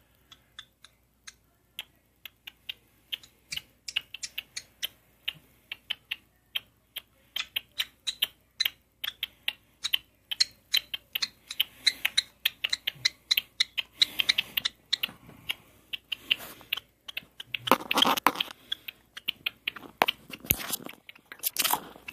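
Small parrot chewing and nibbling with its beak: a run of sharp clicks and crunches, sparse at first and then quicker and denser, with a few louder scratchy bursts in the second half.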